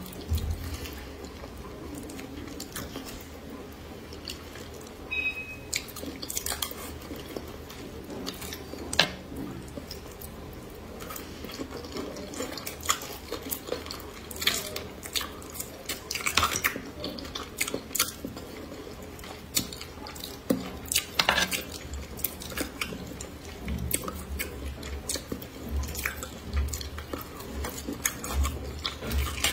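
Close-miked eating of spicy braised fish: wet chewing and lip smacks, with chopsticks clicking against the bowl now and then. These are many short, scattered clicks over a steady low hum.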